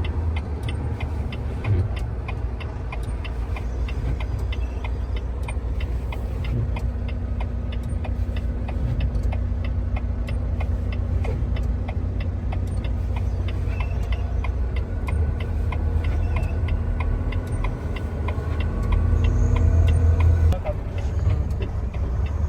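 Semi-truck's diesel engine rumbling steadily with a fast, even ticking over it; the rumble swells louder near the end.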